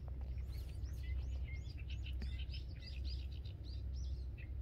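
Small birds chirping: a steady run of short, arched high notes, several a second, over a steady low background rumble.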